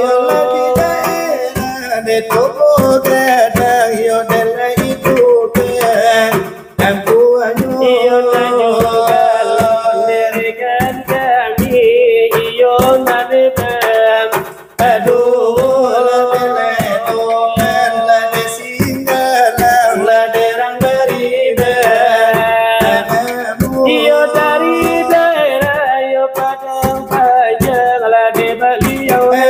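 Salawat dulang: men singing a Minangkabau devotional chant in melismatic lines while beating large brass trays (dulang) with their hands in a fast, driving rhythm. The singing pauses briefly twice, with the tray beats continuing.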